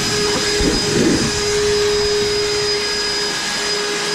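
EGO battery-powered backpack leaf blower running at full power on turbo: a steady rush of air with a constant fan whine.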